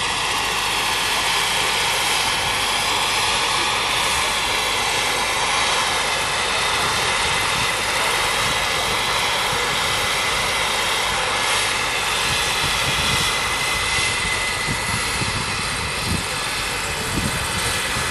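Turbine-powered radio-controlled scale model Bell 412 helicopter flying close by: a steady turbine whine over the rotor noise, with a few low thumps near the end.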